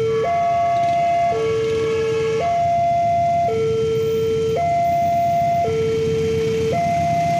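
Railway level-crossing warning alarm sounding a steady two-tone high-low signal, each tone held about a second, the warning that a train is approaching. Road traffic rumbles underneath, and a short chord of higher tones joins in about a second in.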